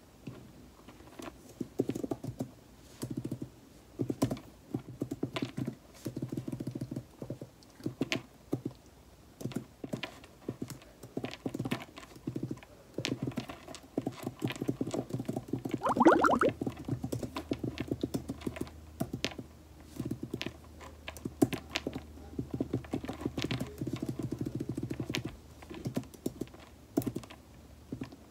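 Typing on a computer keyboard: bursts of quick key taps with short pauses between them. About halfway through there is a brief louder bump.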